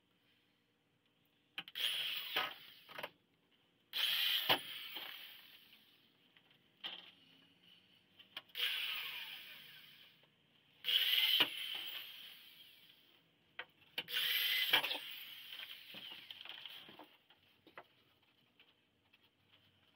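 Power drill running in about five short bursts of a second or two, driving screws into a wooden jig, the motor whine dying away after each burst.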